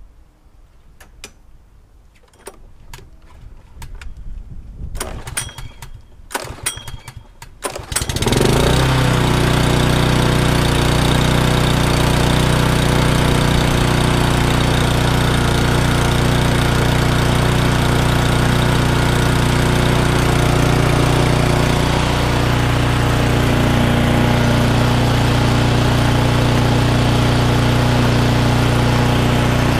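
Mountfield rotary lawnmower's petrol engine starting: a few seconds of clicks and knocks, then it catches about eight seconds in and runs steadily and loud. It is the engine's first start after fresh oil and a new spark plug.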